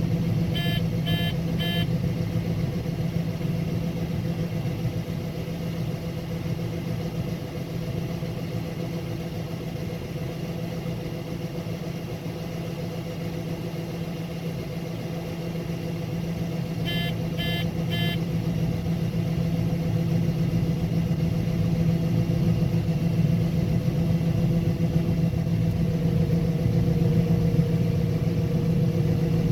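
Combine harvester running steadily while shelling corn, a continuous machine drone. Two sets of three short electronic beeps come through, one about a second in and another about seventeen seconds in.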